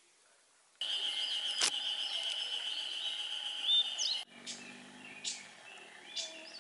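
Mountain forest ambience with birds calling over a steady high-pitched drone. The drone starts suddenly about a second in and cuts off abruptly a few seconds later. Short, separate bird chirps follow, and there is one sharp click shortly after the drone begins.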